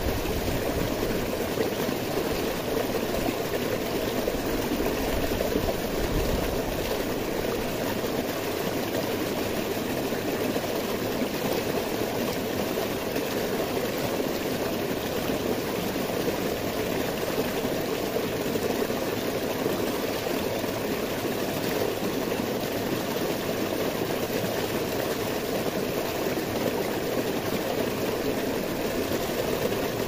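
Stream water rushing and splashing over boulders in a small cascade, a steady close-up rush.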